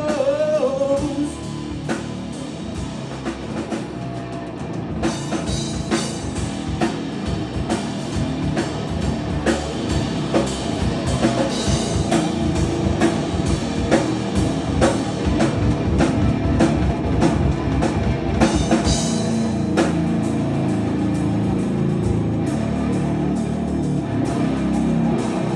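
Three-piece hard rock band playing live: seven-string guitar, six-string bass and drum kit in an instrumental passage, with a sung note trailing off about a second in. About five seconds in the drums pick up into dense hits with cymbal crashes.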